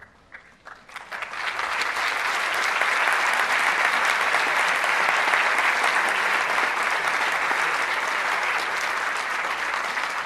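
Audience applauding: a few scattered claps, then full applause from about a second in that holds steady.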